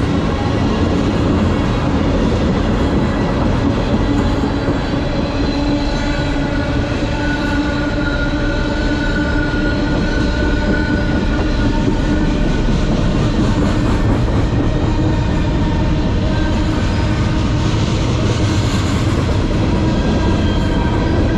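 Freight train cars (tank cars, then a covered hopper and a lumber-loaded flatcar) rolling past at close range: a steady, loud rumble of steel wheels on the rail with thin ringing tones running over it.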